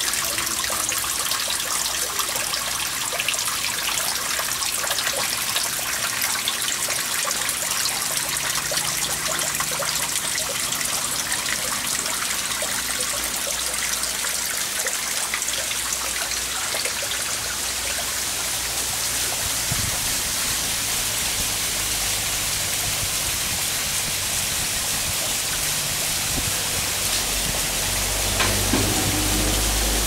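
Steady trickle of water splashing into a garden fish pond.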